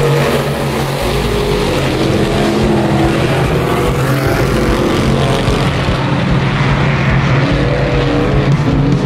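Several dirt-track Sportsman modified race cars running hard together, their V8 engines loud and continuous, with the engine notes rising and falling as cars throttle through the turn and pass by.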